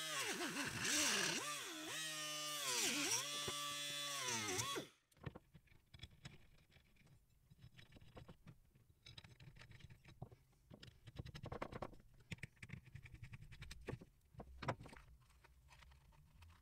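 A small power tool whining, its pitch repeatedly dipping and recovering as it cuts into the plastic tail piece, stopping abruptly about five seconds in. After that, faint clicks and knocks of the plastic bracket and its parts being handled on the bench.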